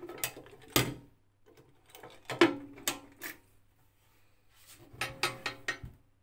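Metal post box's lower door being handled and swung shut: three bursts of clattering knocks and clicks, the metal ringing briefly after the louder ones.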